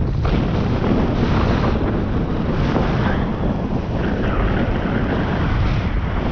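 Heavy wind buffeting the microphone, a loud, steady rush with a deep rumble, as on the move outdoors.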